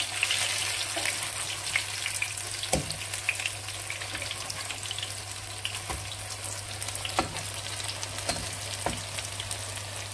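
Potato patties sizzling as they shallow-fry in oil in a nonstick pan, with fine crackling from the oil. A few sharp clicks come from a metal slotted spatula against the pan as the patties are turned over.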